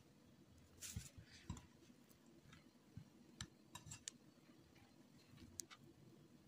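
Wire whisk stirring flour into a thick cookie batter in a bowl, with faint scattered clicks as the wires knock against the bowl's side.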